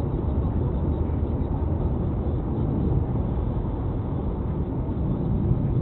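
Steady rumble of a vehicle on the move, road and engine noise through a dash camera's microphone.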